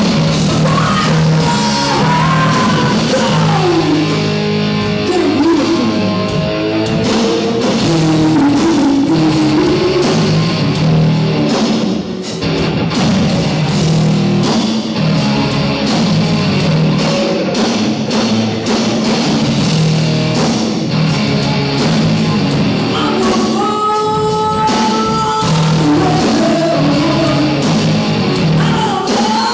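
Rock band playing live: electric guitar, bass guitar and drums with a singer, in a poor-quality audience recording.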